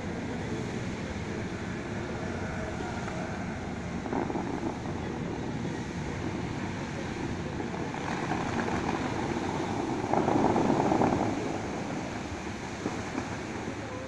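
Water jets of the Dubai Mall fountain rushing and splashing down into the lake, a steady wash that swells a few times, most strongly about ten seconds in.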